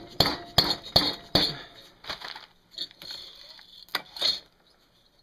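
Metal clinks and knocks from the finned cylinder of a 1979 Honda ATC110 engine as it is worked loose and lifted off its studs. Four sharp clinks come about 0.4 s apart in the first second and a half, then lighter clatter, with two more knocks about four seconds in.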